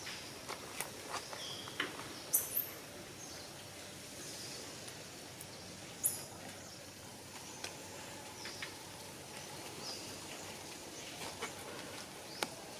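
Outdoor ambience with scattered short, very high chirps and a few sharp clicks.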